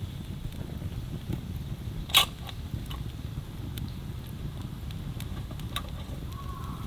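Wood fire crackling: scattered sharp pops and snaps, one louder pop about two seconds in, over a low steady rumble.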